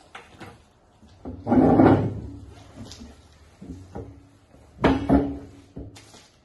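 Desk and chair handling noise: a bag set down on a desk, then a loud thud with scraping as a chair is moved and sat in about one and a half seconds in. After that come a few knocks and rustles as a paper is handled, with two sharp knocks near five seconds in.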